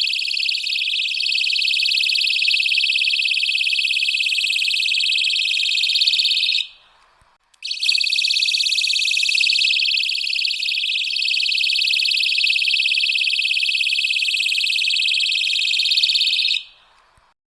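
Personal safety alarm sounding a loud, high-pitched, rapidly warbling tone. It cuts off about six and a half seconds in, starts again about a second later, and stops near the end.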